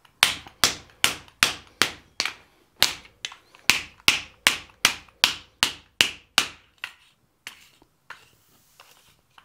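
Rawhide mallet striking red-hot folded sheet steel on an anvil, flattening the fold: a steady run of sharp blows, about two or three a second, that stops about seven seconds in.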